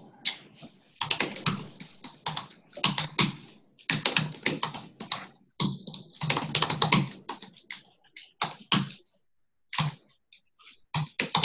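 Typing on a computer keyboard: quick runs of keystrokes in bursts, with short pauses between commands.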